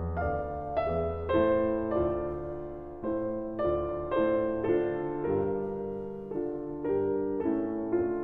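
Background piano music, slow, with each struck note or chord fading away before the next.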